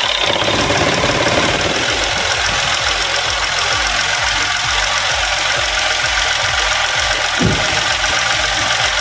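Mitsubishi Mirage G4's three-cylinder engine idling steadily just after starting, with its newly replaced air-conditioning compressor. The grinding noise is gone and the engine runs back to normal.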